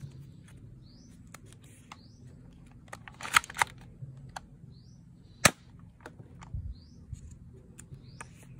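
Scattered plastic clicks and taps as foam darts are handled and pushed into the muzzle of a plastic toy dart pistol, with a few clicks close together about three and a half seconds in and one sharp click about five and a half seconds in.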